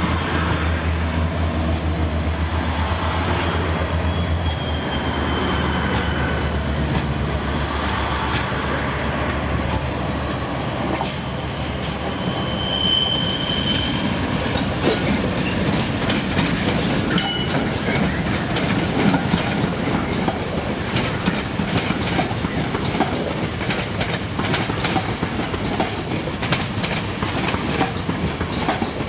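Northern Class 142 Pacer diesel railbuses on the move: first a steady low drone from the underfloor diesel engine as one pulls away, with brief high wheel squeals. Then the rumble of wheels, with a rapid clickety-clack over rail joints and points and another short squeal about halfway through.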